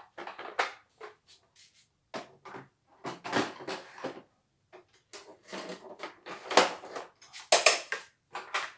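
Irregular knocks, clatter and rustling of things being handled, picked up and set down on a wooden workbench, in short uneven bursts with brief gaps.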